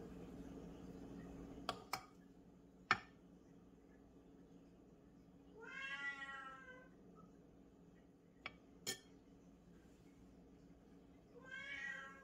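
A cat meowing twice: one long meow about six seconds in and a shorter one near the end. Between them come a few light clinks of a metal ladle against the batter bowl and the waffle maker.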